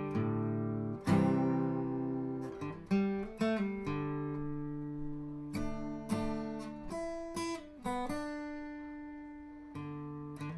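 Background music: an acoustic guitar playing plucked notes and strummed chords, each one ringing out and fading before the next.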